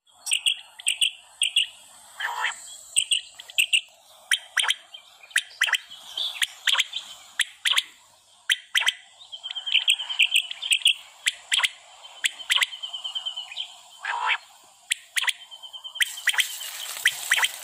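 Quail calling: short chirps repeated over and over, with sharp clicks and a fast rattling trill near the middle. About a second before the end, the hiss of oil sizzling joins in as raw quail goes into the hot pan.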